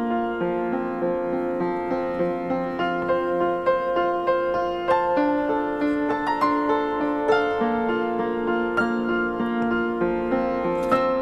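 Background piano music with held notes that change every second or so.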